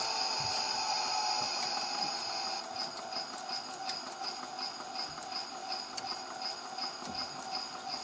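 Theo Klein toy Miele W1 washing machine on its spin cycle, spinning not too fast: a steady high whine that, about three seconds in, turns into a pulsing whine of about three beats a second and slowly gets quieter.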